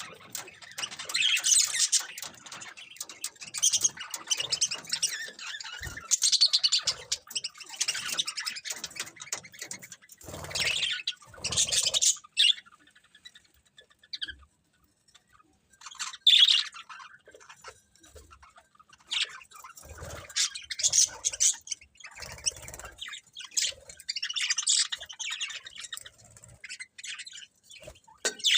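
Pet budgerigars chirping and chattering in quick, irregular bursts of high warbles and squawks, with short pauses in between.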